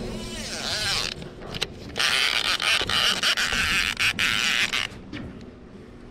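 Spinning reel's drag clicking and buzzing as a hooked carp pulls line off. There is a rattling run in the first second, then a dense, louder burst from about two seconds in until nearly five seconds.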